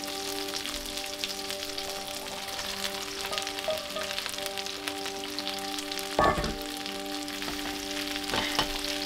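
Chicken thigh pieces frying in oil with a steady sizzle in a frying pan as sliced onion and carrot are added and stirred with chopsticks; a loud knock about six seconds in and a smaller one near the end.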